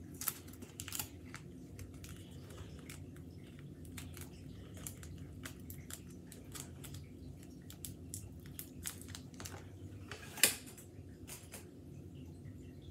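Paper crinkling and sticky tape being handled and pulled as the top of a fluff-stuffed paper squishy is taped shut: scattered small crackles and clicks, with one louder crackle about ten seconds in.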